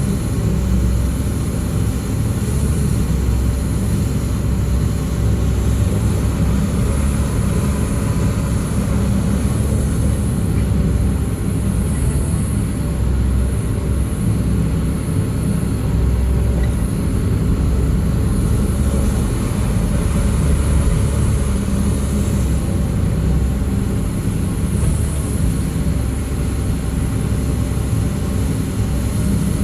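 Heavy machinery engine running steadily and loudly, its sound concentrated low, with no pauses or changes in pace.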